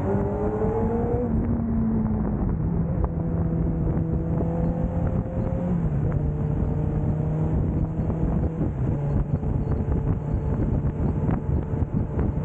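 Suzuki GSX-R's inline-four engine under way, with wind rushing past. The engine note climbs quickly in the first second or so, drops back, then settles into a steadier cruising note that eases down in a few small steps.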